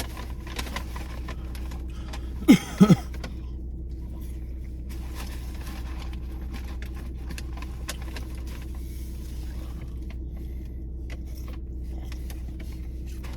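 Small clicks and rustles of messy eating over a steady low hum, with a short loud vocal sound, bending in pitch, about two and a half seconds in.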